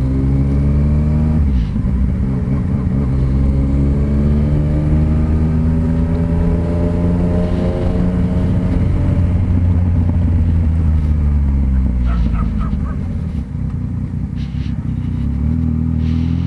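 Yamaha Tracer 900 GT's three-cylinder engine running through an open exhaust with its dB killer removed, under way on the road. Its pitch climbs slowly for several seconds, falls away, and starts climbing again near the end.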